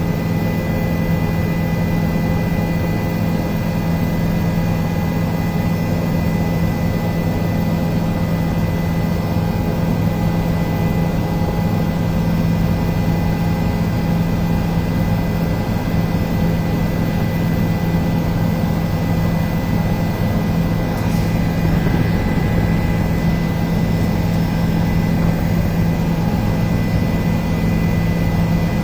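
Helicopter in flight, heard from inside the cabin: a steady drone of turbine engine and rotor with a thin, high, steady whine over it.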